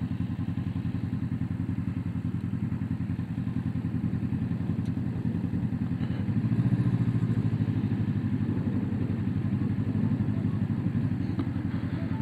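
Motorcycle engine running steadily while riding, with an even, low pulsing note that swells a little louder for a couple of seconds midway.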